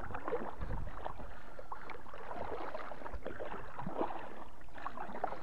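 Kayak paddle working through the water: a run of small splashes and drips as the blade dips and lifts, over a steady wash of water against the hull.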